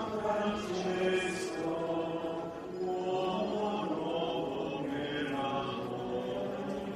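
Many voices of a religious procession singing a slow chant together, held notes moving gently in pitch.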